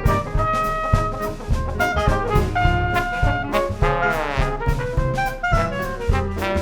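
Traditional New Orleans jazz band playing an up-tempo tune: trumpet, clarinet and trombone weave lines together over piano, string bass and a drum kit keeping a steady beat. About four seconds in, one long falling slide in pitch cuts across the ensemble.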